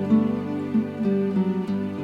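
Peaceful instrumental background music of plucked string notes.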